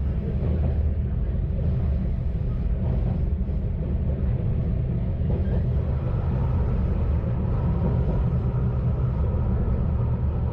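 Kanto Railway KiHa 532 diesel railcar running along the line, a steady low rumble of engine and wheels on rail heard from on board. A faint steady whine joins the rumble about six seconds in.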